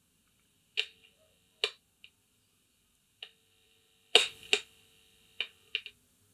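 About nine sharp clicks and pops at irregular spacing, each with a brief ringing tail, the loudest pair a little past the middle. They come from a homemade high-impedance RF/AF signal-tracer probe and its speaker as the probe tip touches the radio's audio output transistors. No programme audio comes through because the radio's volume is down.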